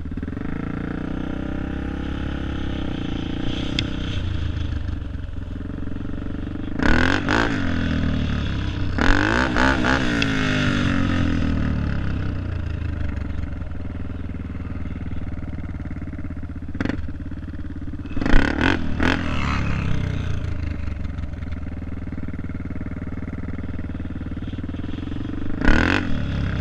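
Dirt bike engine running under the rider, with several bursts of throttle in which the pitch climbs and falls again.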